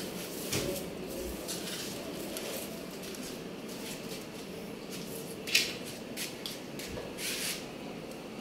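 Goats shuffling in a straw-strewn pen: scattered short rustles and scrapes over a steady background hum, the loudest a brief rustle about five and a half seconds in.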